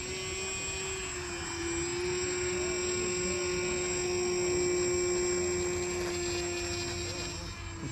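Radio-control model airplane's motor and propeller running at high power with a steady whine, getting a little louder around the middle.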